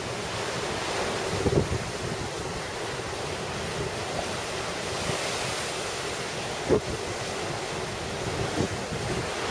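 Rough storm surf breaking against and over a seawall, a steady rush of crashing waves, with wind on the microphone and a couple of brief thumps.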